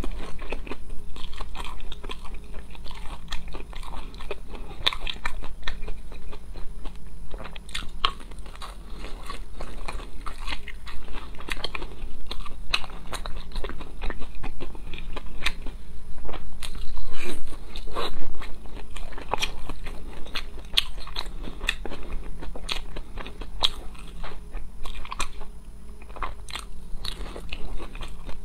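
A person biting and chewing crispy, crumb-coated fried food: a dense run of irregular sharp crunches and crackles, a little louder about two-thirds of the way through.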